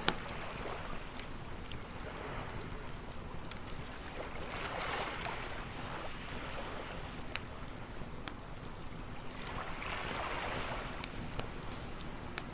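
Ocean waves washing onto a beach in slow swells a few seconds apart, with a wood campfire crackling over them in scattered sharp pops, the loudest right at the start.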